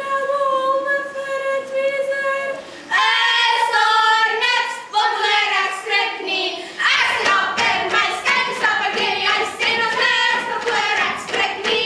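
Children singing together in a hall: a long held note for about three seconds, then a sung tune, louder from about seven seconds in.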